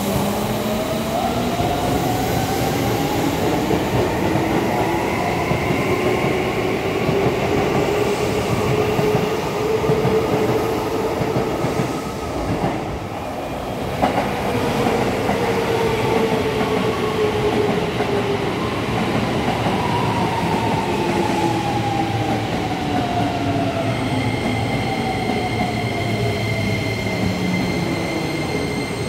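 Keisei 3400-series electric train pulling out, its traction motors whining up in pitch over about ten seconds. After that a Keisei 3000-series train comes in on the next track, its motor whine falling in pitch as it slows, with a steady high whine near the end.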